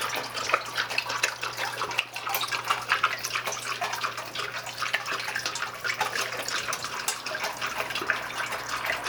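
Water from a homemade dog drinking fountain, pushed up by a small submersible pump, splashing and trickling steadily, with a steady low hum underneath.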